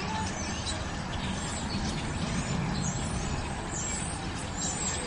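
Outdoor background: a steady low rumble with small birds chirping faintly and briefly, more often in the second half.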